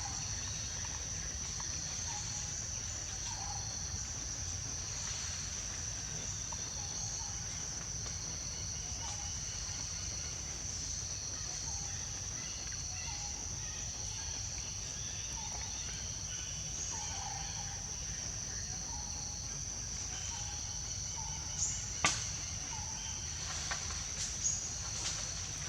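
Steady, high-pitched drone of insects such as crickets or cicadas, over a low background rumble. A few sharp clicks or knocks come near the end.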